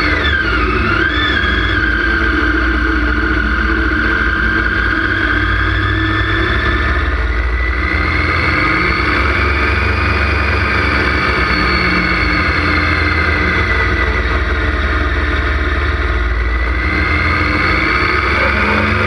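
Motorcycle engine running under way, its pitch rising and falling with the throttle: a quick dip and climb about a second in, a slow rise and fall mid-way, and a climb again near the end. Wind rumble on a bike-mounted camera's microphone sits under it.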